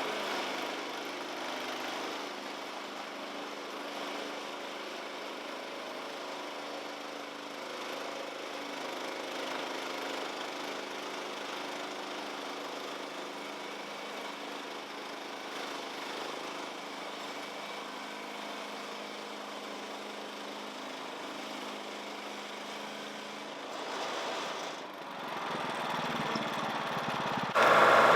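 Small gasoline engine of the lumber-milling rig running steadily at an even, low speed. Just before the end the sound suddenly gets much louder.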